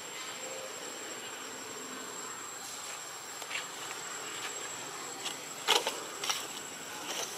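Insects keep up a steady high-pitched whine and hiss. In the second half a few short, sharp clicks cut in, the loudest a little before six seconds.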